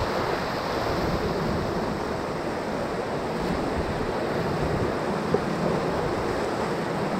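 Whitewater rapids rushing steadily around a paddle raft.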